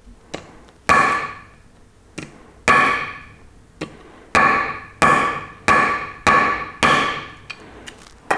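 A heavy knife blade chopping down through a piece of silver onto a wooden board, cutting off hacksilver: about seven sharp strikes, each with a short metallic ring. The later strikes come quickly, about one every half second, with lighter taps between them.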